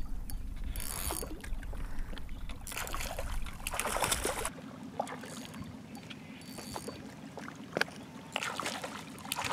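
A spinning reel cranked in short bursts while a hooked fish is played in from the shore, with water lapping at the rocks. A low rumble underneath stops about halfway through.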